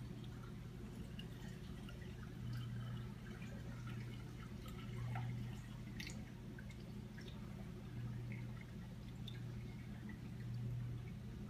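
Reef aquarium running: a steady low pump hum that swells and eases about every two and a half seconds, with small drips and trickles of circulating water.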